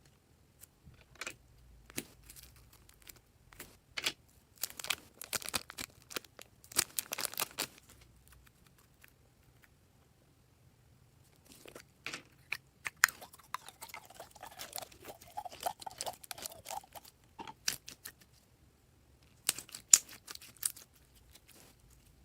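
Purple slime being squeezed and stretched by hand, giving bursts of small crackling pops and clicks, with a quiet pause near the middle and a longer, wavering squelch partway through the second half.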